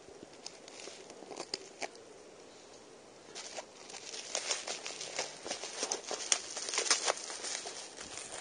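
Bubble wrap being handled and pulled off a packaged item by hand: a few scattered crackles at first, then dense crinkling and crackling from about three seconds in.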